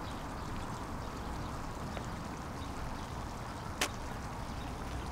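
Steady outdoor background noise picked up by the camera microphone, with a single sharp click about four seconds in.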